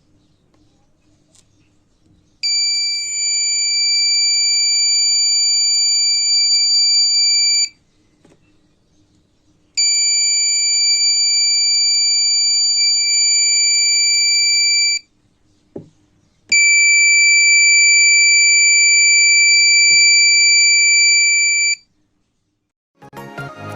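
Homemade 555-timer touch alarm's buzzer sounding three times, each a steady high-pitched beep lasting about five seconds, the one-shot period set by its 47k resistor and 100 µF capacitor; each beep is the alarm being tripped by a disturbance to its ball-bearing vibration sensor.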